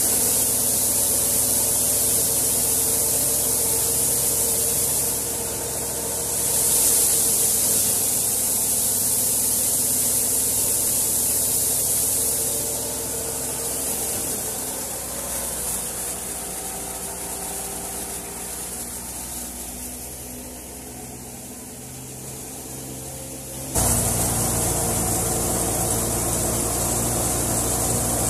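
Tractor-driven Hudabiah wheat thresher running steadily: a hum from the drum, pulleys and belts under a loud hiss. It dips somewhat in the middle, then comes back suddenly to full loudness near the end.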